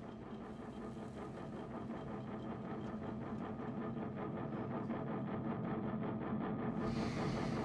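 Low, pulsing synthesized drone of a film score, swelling steadily louder. A rush of hiss joins it about seven seconds in.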